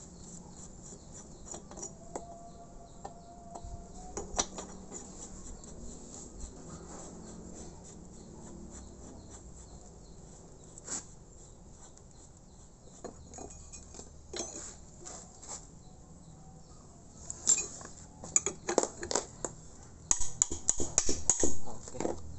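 Light metallic clicks and clinks of hand work on an air compressor head as its hex valve-cover plugs are threaded in by hand, with a run of louder clinks near the end.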